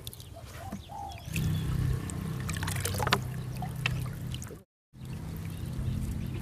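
Water trickling and pouring off a three-layer trammel net as it is pulled up out of a pond by hand, with small splashes. The sound gets louder about a second in and cuts out completely for a moment near the end.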